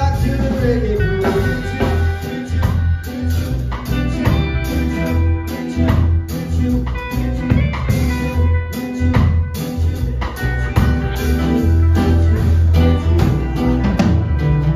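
Live band playing a song: electric and acoustic guitars over a drum kit, with a deep pulsing bass line and a lead vocal.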